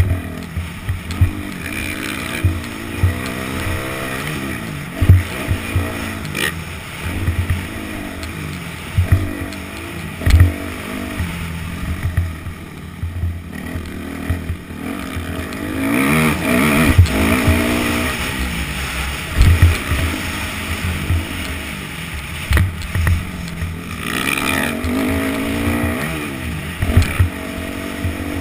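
Yamaha YZ250F four-stroke single-cylinder dirt bike engine revving up and down as the rider works through the throttle and gears, with frequent sharp thumps.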